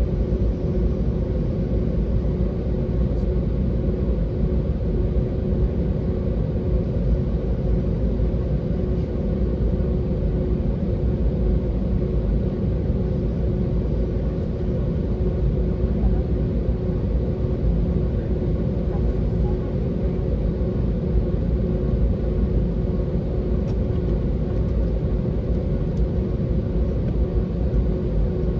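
Cabin noise of an Airbus A320-family airliner taxiing: the jet engines give a steady low rumble with a constant hum over it.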